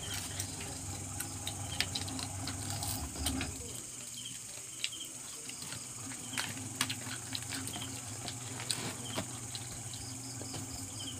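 Scattered crisp clicks and crunches of people eating crispy fried crab by hand, over a steady high trill of crickets. A low hum cuts out a few seconds in.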